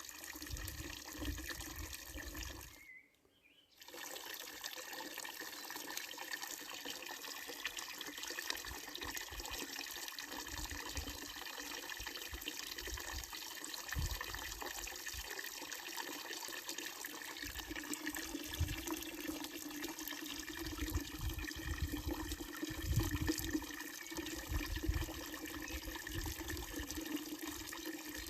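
Water running steadily from a wooden trough fountain's spout and splashing into its basin. The sound cuts out for about a second near the start, then carries on.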